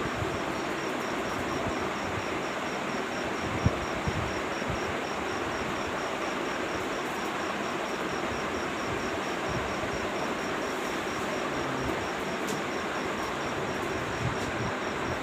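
Electric fan running with a steady rush of air and a faint, high-pitched chirp repeating evenly about three or four times a second, the fan's unexplained noise.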